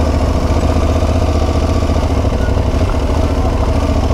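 Motorcycle engine idling steadily, with a constant low rumble.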